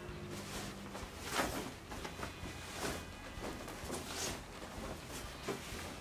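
A duvet in its cover being lifted and shaken out, the fabric whooshing and rustling in four swishes about a second and a half apart.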